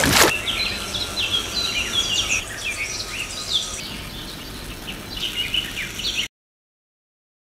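Birds chirping in many short, high notes over a steady hiss, with a sharp click at the very start. The sound cuts off abruptly about a second before the end, leaving dead silence.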